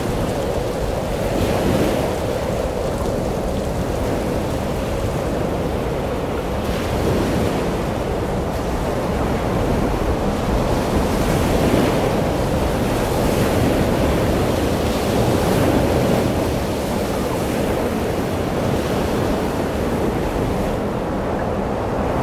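Sea surf and wind: a steady rushing noise of breaking waves that swells and eases every few seconds.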